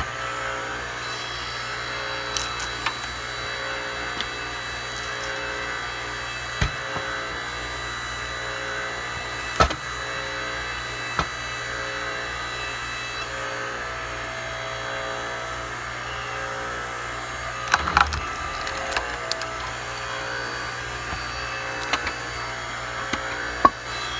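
Hydraulic log splitter running with a steady hum, broken by scattered sharp cracks and knocks of firewood splitting and being handled, with a cluster of them about eighteen seconds in.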